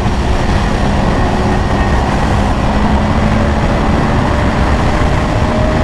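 Sport motorcycle under way at a steady speed: wind rushing over the helmet microphone, with the engine's steady drone underneath, its pitch creeping up slightly near the end.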